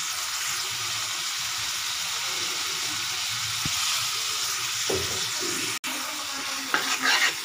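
Freshly washed diced carrots and green beans sizzling in hot oil in a kadai: a steady frying hiss. It cuts out for an instant about six seconds in, and a few louder crackles come near the end.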